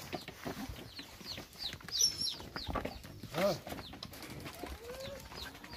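Farmyard birds calling: a stream of quick, high, falling chirps, with a louder short call about three and a half seconds in.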